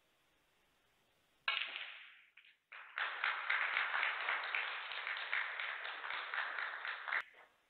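Audience applause in a snooker arena, rising to a dense clapping about three seconds in and stopping about four seconds later, after a brief sharper burst of sound a second and a half in.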